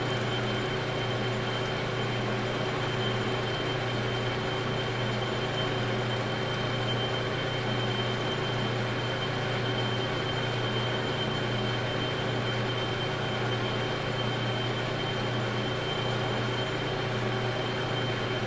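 Metal lathe running steadily with a brass valve part spinning in the chuck, a constant motor hum with a steady high whine. The tool is taking a very light facing cut on the part's sealing surface, barely touching.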